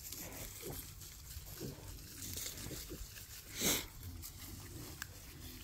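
Berkshire piglets foraging in dry leaf litter, crunching acorns and grunting softly, with one short, louder squeal about two-thirds of the way through.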